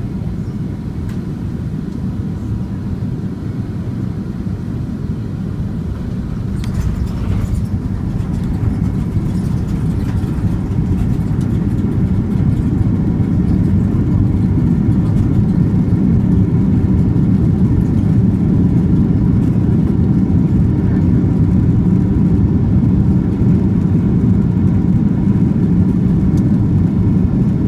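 Boeing 767's Pratt & Whitney PW4000 engines and the runway rollout heard from inside the cabin over the wing: a loud, deep rumble that swells from about six seconds in as reverse thrust spools up, then holds. A brief rattle comes just before the rise.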